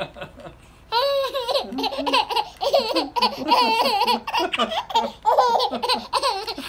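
A baby laughing hard in quick, high-pitched bursts, one after another, starting about a second in.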